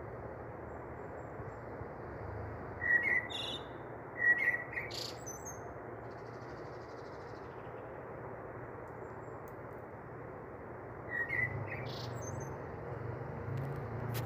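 A few short bird chirps, about three seconds, four seconds and eleven seconds in, over a steady background hiss.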